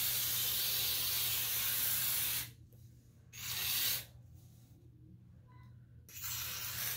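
Aerosol can of hairspray spraying in three goes: a long hiss that stops about two and a half seconds in, a short burst about a second later, and another hiss near the end.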